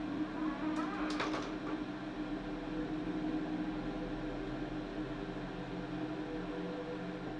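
Bathroom bifold door swinging partly shut, a short creak and a rattle of clicks about a second in, over a steady low hum.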